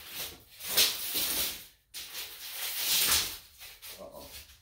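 Rustling and rubbing noise in uneven swells, with a sudden cut to near silence just before two seconds in: the recording device being handled or rubbing against fabric.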